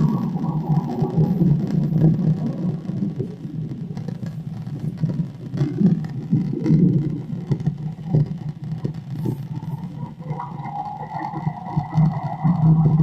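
Playback of a recorded low, steady rumble of fluctuating noise, like distant traffic or aircraft noise, from which the recordist hopes to pick out harassing sounds; a higher hum joins about ten seconds in.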